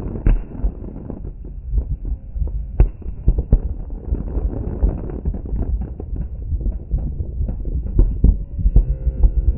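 Many fireworks going off at once: a dense, irregular barrage of booms and bangs over a low rumble, with no pause. A few louder bangs stand out, one just after the start and one about three seconds in.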